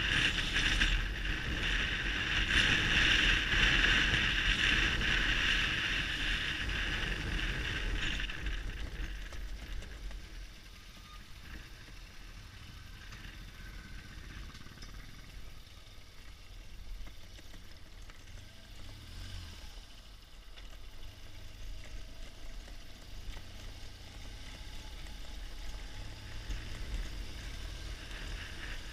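BMW R1200GS Adventure's boxer-twin engine running at low speed as the bike rides a rough gravel track. The sound is louder for the first eight seconds or so, then quieter.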